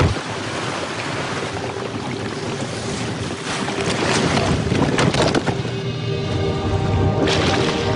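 Sea water rushing and splashing among ice floes, with a few louder gushes. Background music with held notes comes in over it in the second half.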